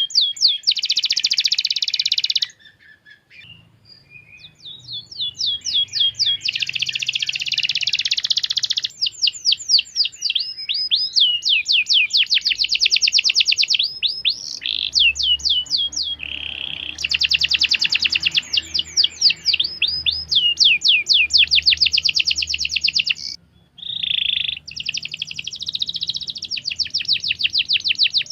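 Domestic canary singing a long song of fast trills and rolls, rapid runs of repeated sweeping notes, breaking off briefly about three seconds in and again near the end.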